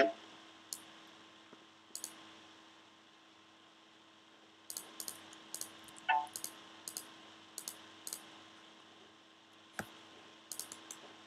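Computer keyboard and mouse clicks: a few scattered taps, then a run of irregular key presses in the middle and a few more near the end, over a faint steady hum.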